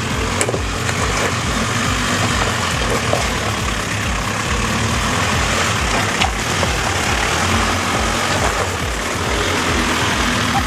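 Range Rover Classic off-roader's engine running at low revs with an even low throb as it crawls over a rocky trail, with a couple of brief knocks.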